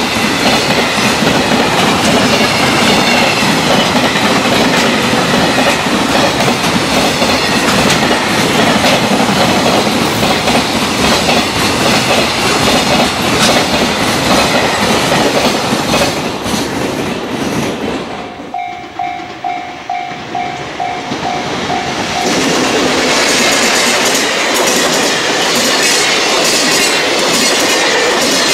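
Freight train passing at speed, its wheels clacking over the rail joints. About two-thirds of the way through the train clears and a level-crossing warning bell rings out for a few seconds, about two strikes a second, before another train passes and covers it.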